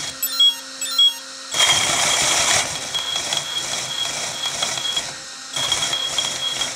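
Brushless RC motor driving a wheel through 3D-printed PETG gears, shaft and coupler on a test rig. After two short chirps near the start it speeds up about a second and a half in and runs with a steady high whine and a rattly noise, drops off briefly about five seconds in, then runs again. The wheel is spinning unloaded and wobbling freely without steering rods.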